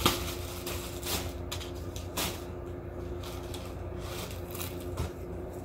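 Clear plastic poly bag crinkling and rustling in short bursts as clothing is handled and pulled out of it, over a steady low hum.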